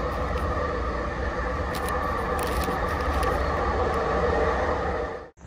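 Steady rumble of a moving public transit vehicle heard from inside, with a few faint rustles as a paper bag is handled; it cuts off abruptly near the end.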